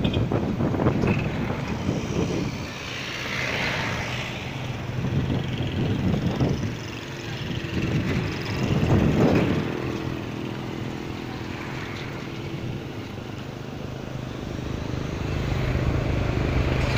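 Distant jet airliner engines on a takeoff roll: a noise that rises and falls, with a louder swell about nine seconds in, then a steady low hum.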